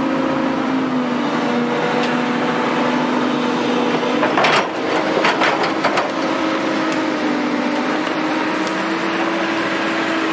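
Diesel engine of a tracked hydraulic excavator running steadily under load while it digs a trench, its pitch shifting a little as the hydraulics work. A short cluster of sharp knocks comes about halfway through.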